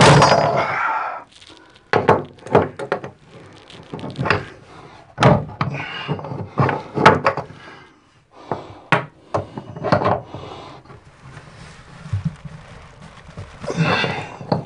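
Metal hand wrenches clanking and knocking against a chrome tub drain and the fiberglass tub as a stuck drain is worked loose: irregular sharp knocks and clatters, with a louder noisy clatter right at the start.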